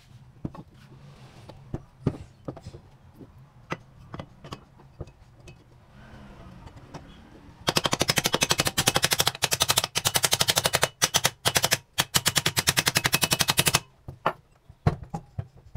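A hammer tapping rapidly on the metal end cover of a small electric pump motor, a fast, even run of sharp strikes lasting about six seconds, driving the end cover down onto the motor housing. Before it come scattered single knocks and clatter, and a few more knocks follow near the end.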